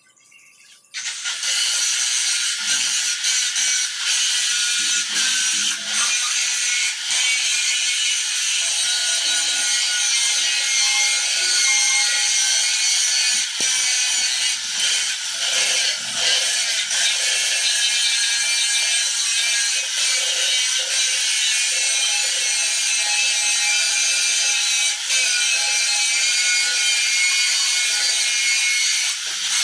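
MIG welder arc crackling steadily through a long continuous weld bead. It starts about a second in and cuts off near the end.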